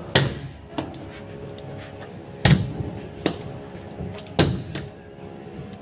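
Sharp, irregular knocks and thuds, about six of them, from hand tools striking the floor while new carpet is fitted along a wall.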